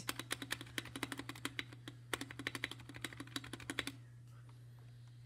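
Fast typing on a budget 60% mechanical keyboard with Otemu Red linear switches and foam added inside the case: a quick run of key clacks that stops about four seconds in.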